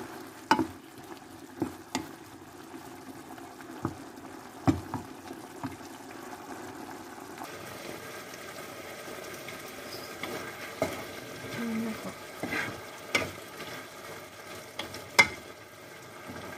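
Chicken strips and red bell pepper simmering and sizzling in a sauce in a pan, with a wooden spatula stirring and knocking sharply against the pan now and then.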